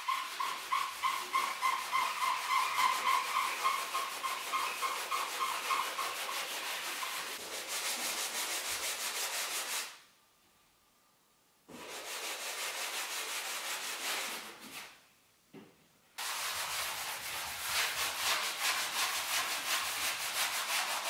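Hand-sanding a wall with sandpaper, quick back-and-forth scratchy strokes a few times a second. The early strokes carry a squeaky tone. The sanding stops about ten seconds in for a couple of seconds, pauses again briefly a few seconds later, then picks up again.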